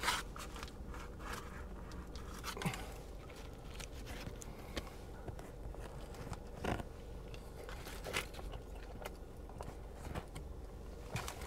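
Faint eating sounds: a sandwich wrapper rustling and crinkling, with a man biting into and chewing the sandwich, heard as scattered soft clicks and crunches.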